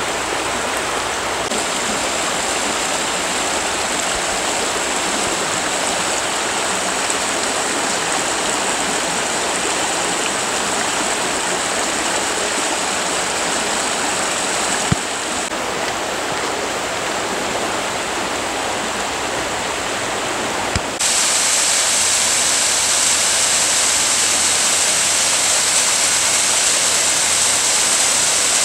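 Steady rushing water of Cataract Falls, a small mountain waterfall. About 21 seconds in it changes abruptly and gets louder and hissier.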